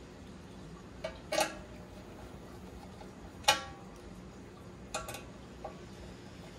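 Several sharp metallic clinks and taps from the aluminium stand parts and their screws being handled. Each has a brief ring, and the loudest comes about three and a half seconds in.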